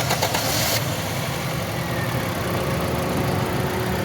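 Toyota Corolla four-cylinder petrol engine idling unevenly with a misfire, caused by a faulty ignition coil. A brief crackling hiss sounds in the first second.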